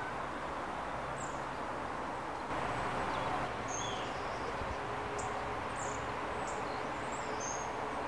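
Woodland ambience: a steady background hiss with scattered short, high bird chirps, most of them in the second half.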